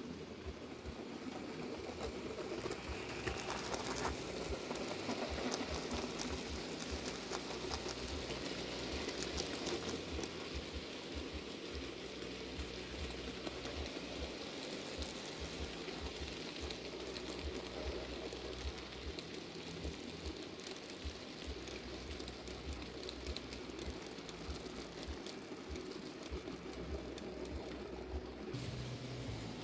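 N-scale model electric locomotive hauling tank wagons along the track: a small motor whirring and the wheels clicking and rattling over the rails, a little louder as the train passes in the first ten seconds or so.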